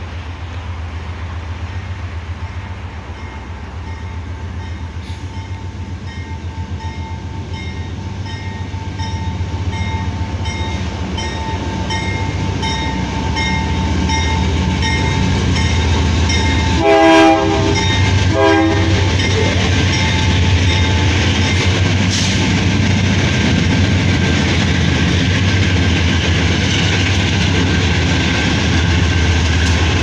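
KCSM GE AC4400CW diesel-electric locomotives hauling a freight train, approaching and passing close by: a steady low engine drone that grows louder, two short horn blasts about halfway through, then rumble and wheel clatter on the rails as the locomotives go by.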